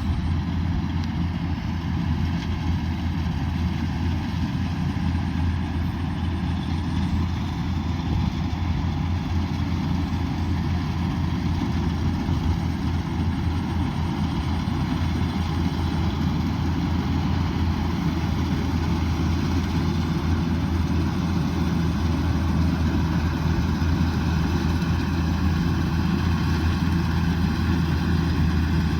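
Kubota DC108X combine harvester's diesel engine running steadily with a deep, even hum.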